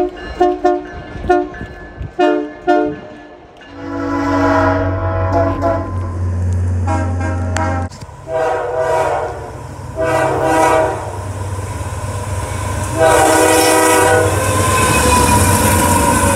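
Locomotive multi-chime air horn sounding a horn show: about five quick short toots, then a series of longer chord blasts. A low engine rumble sits under the first long blasts, and the noise of the moving train builds under the last ones.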